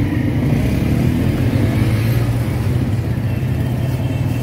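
Steady low rumble of engines from street traffic running close by.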